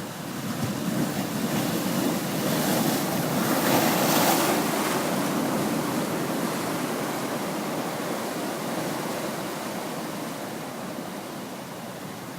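Ocean waves breaking against sea cliffs: a surge of surf swells up, is loudest about four seconds in, then slowly washes away, with some wind on the microphone.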